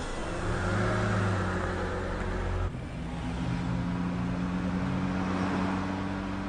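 Car engine running steadily on the move. About two and a half seconds in, the engine note changes abruptly to a different steady tone.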